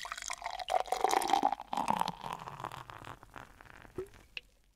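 Beer pouring from a bottle, the pour fading out after about three seconds, then two short clicks near the end.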